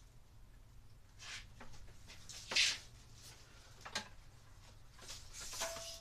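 Scattered handling noises: a few short rustles, the loudest about two and a half seconds in, and a sharp click about four seconds in.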